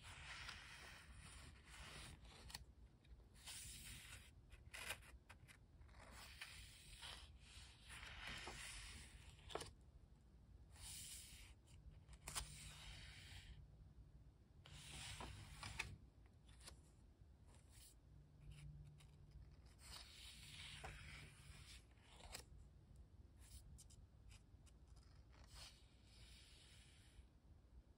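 Faint rustling and sliding of paper as the pages of a small Pentalic sketchbook are handled and turned, in a series of short scrapes with an occasional light tap.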